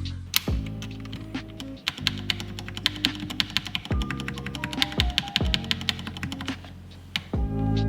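Rapid typing on a mechanical keyboard, a fast run of key clicks that thins out near the end, over background music.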